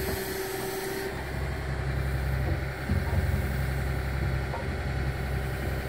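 Excavator engine idling steadily, a low even hum. A faint higher whine stops about a second in.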